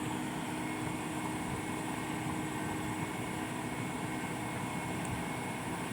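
Steady, even drone of a running engine or machine with a constant hum, holding the same level throughout.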